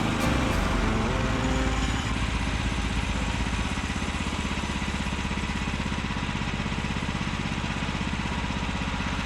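The 14 hp engine of a Woodland Mills HM126 bandsaw mill running steadily, settling into an even, fast pulse about two seconds in.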